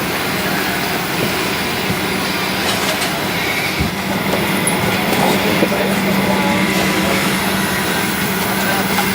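Steady rumble and hiss of a vehicle interior, with a low hum that holds steady after a short click about four seconds in.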